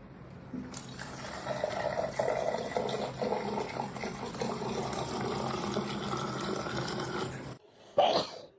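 Water running steadily, as from a tap into a sink, for about seven seconds before it stops; a brief loud sound follows near the end.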